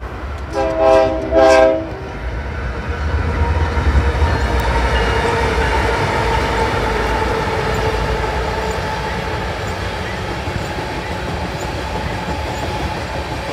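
Diesel freight locomotive horn sounds two short blasts in the first two seconds, then BNSF locomotives and coal hopper cars roll past with a steady rumble and rail noise.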